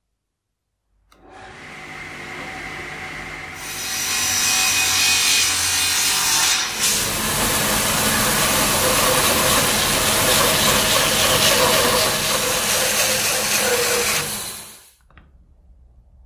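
A power tool starts about a second in and runs lightly for a couple of seconds, then bites into wood, loud and continuous for about eleven seconds, before cutting off abruptly.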